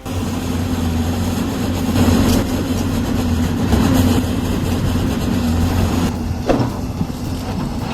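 Excavator's diesel engine running steadily with a low drone, with a sharp knock about six and a half seconds in.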